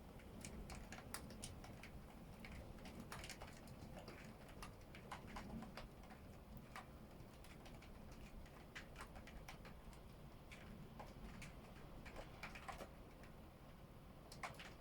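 Faint, irregular ticking and tapping of storm precipitation hitting a hard surface, several taps a second over a low steady background.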